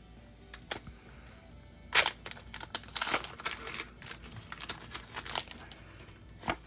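Foil booster pack wrapper crinkling and tearing open, in short irregular crackles and clicks, the loudest about two and three seconds in.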